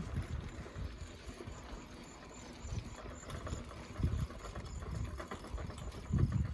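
Bicycle ride with irregular low thumps and rattles. The heaviest jolts come about four seconds in and near the end.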